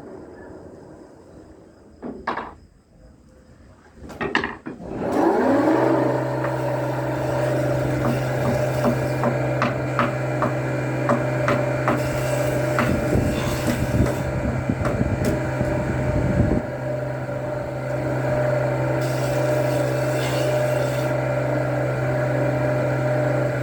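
Electric woodworking power tool whose motor spins up about five seconds in and then runs at a steady pitch, with scattered clicks and knocks of wood while it runs. Two short knocks come before it starts.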